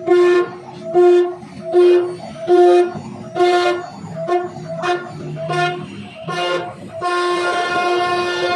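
CNC router spindle running with a steady high whine, swelling louder about once a second as the carving bit bites into the wooden door panel, then holding steady near the end.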